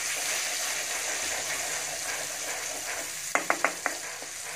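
Tomato, onion and garlic paste sizzling in melted butter in a kadhai as it is stirred with a wooden spatula. A little over three seconds in, four quick knocks of the spatula against the pan.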